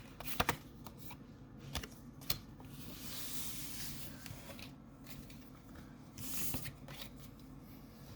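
Pokémon trading cards being handled: scattered light taps and clicks, with two longer sliding rustles, one about three seconds in and another later.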